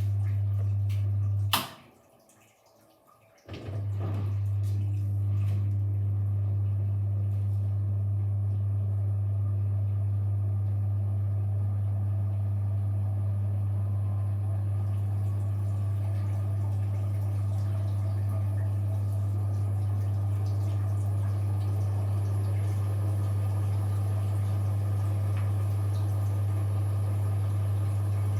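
Washing machine humming steadily, with water running through it. The sound cuts out with a click about two seconds in and comes back about two seconds later.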